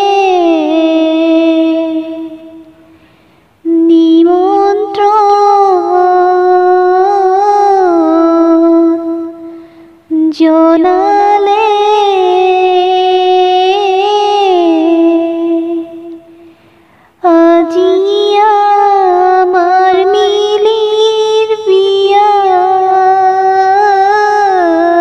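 Background music: a slow, wordless melody from a female voice humming, in long gliding phrases broken by short pauses.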